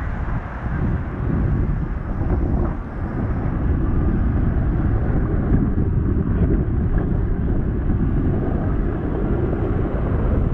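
Wind buffeting the microphone of a rider on a moving e-bike: a loud, ragged low rumble.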